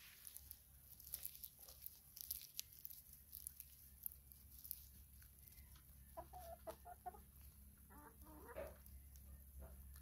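Hens clucking softly in two short runs of notes, about six and eight seconds in. Quick light clicks from beaks pecking at the ground come through the first half.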